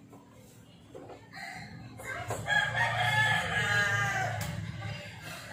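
A rooster crows once, starting a little over two seconds in and lasting about two seconds, over a faint low hum.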